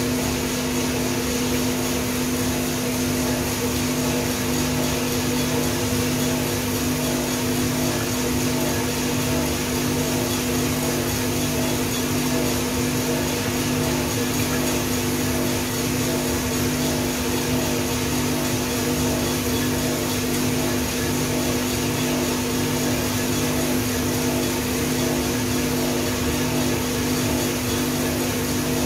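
Small shop drum coffee roaster running steadily in the first minute after the green beans are charged: a constant hum from its motor with a steady rush of air from the fan.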